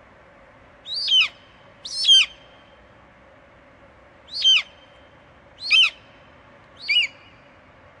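An eagle calling five times, short sharp high calls that each fall in pitch, spaced about a second apart with a longer gap in the middle.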